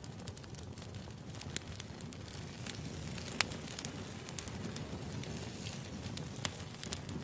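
Wood campfire burning with steady crackling: a low rumble of flames under many scattered sharp pops and snaps, a couple of them louder than the rest.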